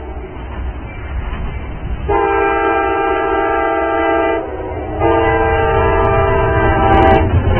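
Train horn sounding two long blasts of about two seconds each, a short pause between them, each a multi-note chord, over a steady low rumble of the train.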